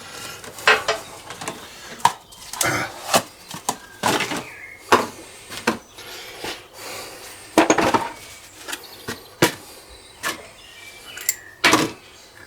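Irregular sharp metal knocks, a dozen or more, some ringing briefly: a hammer striking a Lisle valve keeper remover on a Kubota three-cylinder cylinder head, popping the collets so the valve springs come off.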